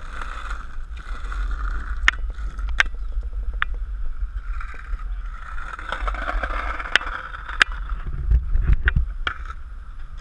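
Skateboard wheels rolling over rough asphalt, a steady gritty rumble, with several sharp clacks of the board spread through it.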